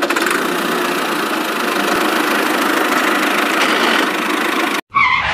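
Steady engine running noise, like a truck engine idling, that cuts off suddenly near the end, followed by a short wavering tone.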